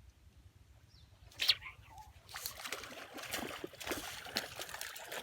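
Water splashing and sloshing at the surface, starting about two seconds in, with many small irregular splashes. A single sharp knock comes just before it, and a bird chirps faintly.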